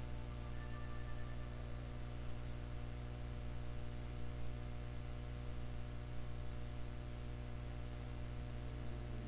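Steady low mains hum, with no other sound standing out.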